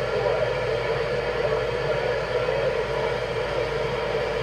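CB radio receiver giving out a steady static hiss between transmissions, with no readable voice coming through.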